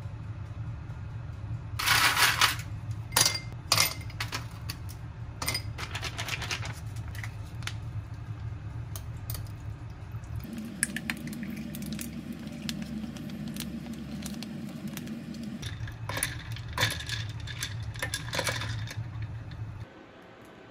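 Iced coffee poured from a plastic pouch over ice cubes in a glass. There are sharp clinks and crackles of ice early on and again near the end, and a steady pour from about ten to fifteen seconds in, all over a steady low hum.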